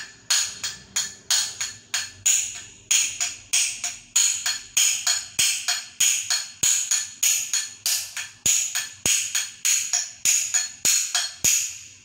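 Quick, even metal-on-metal hammer blows, about two and a half a second, each with a bright clink. They are driving the worn steel shaft out of an Arno electric fan's motor rotor, and the shaft is working loose.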